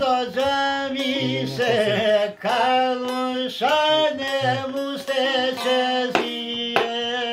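A man singing a folk song, accompanying himself on a çifteli, the two-stringed Albanian long-necked lute, its plucked notes sounding under the voice.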